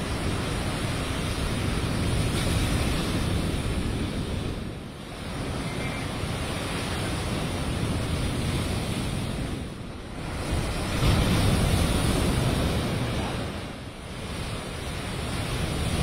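Heavy storm surf breaking and washing over shore rocks, swelling and easing every few seconds, with the loudest surge about eleven seconds in. Wind buffets the microphone.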